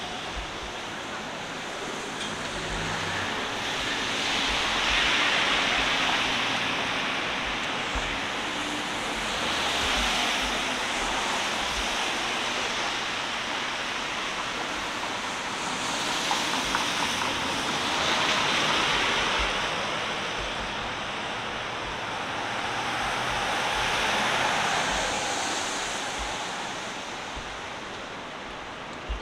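City street traffic: several vehicles pass one after another, each a rising and fading rush of tyre and engine noise over a steady traffic hum.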